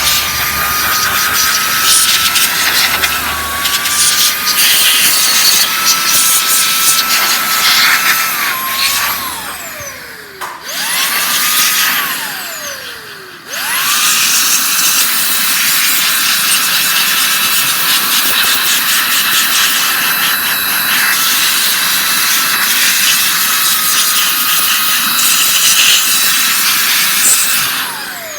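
Makita GA027G 40V XGT cordless angle grinder running at full speed with a loud, steady high whine. It is switched off and coasts down with a falling pitch about nine seconds in, is briefly started and coasts down again, then runs steadily and winds down again near the end.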